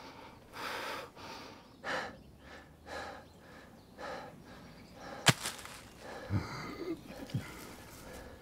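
A person breathing hard in short, noisy breaths, about one a second. About five seconds in comes a single sharp click, then a few soft knocks.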